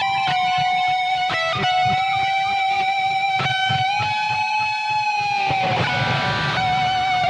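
ESP LTD H-401QM electric guitar with DiMarzio Titan pickups, played through a Boss ME-80 with delay: a few picked notes, then a long sustained lead note that bends slightly up about four seconds in, breaking into a noisy wash near the end before the note comes back.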